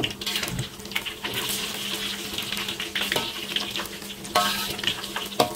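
Battered tempeh sizzling in hot oil in a metal wok, with a metal spatula scraping and knocking against the pan as the pieces are stirred and turned.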